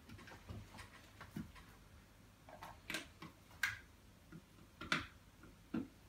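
Hand screwdriver turning the screws back into a Wahl Senior hair clipper's housing: faint, irregular clicks and scrapes of the tip in the screw heads, with a few sharper ticks in the second half.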